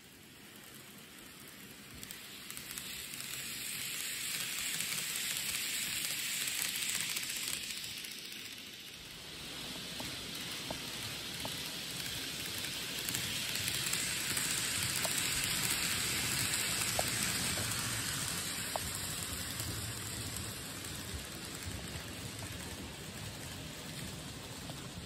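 N gauge model train running on layout track: a rushing hiss of wheels and motor that swells and fades twice as it passes close, with a low rumble and a few light clicks over the rail joints on the second pass.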